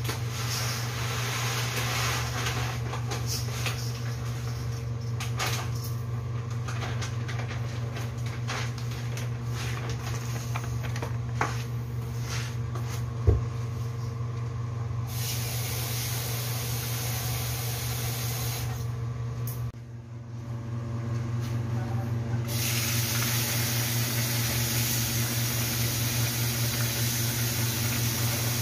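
Light clicks and knocks of hands working at a kitchen counter over a steady low hum, with one sharp knock about halfway through. Later, a kitchen tap runs in a steady hiss into a metal bowl of glutinous rice being washed.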